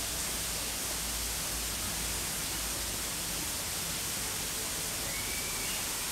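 Steady, even background hiss with no distinct events; a faint short high whistle-like tone about five seconds in.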